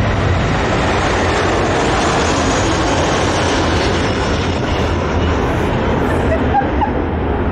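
Narrow-body jet airliner passing low overhead on final approach, its engine noise loud and steady.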